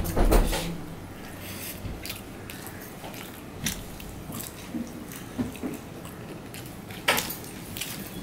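Close-up mouth sounds of a person biting and chewing a hand-fed mouthful of rice and fried vegetable items, a string of short wet clicks. A low thump comes right at the start and a sharper click about seven seconds in.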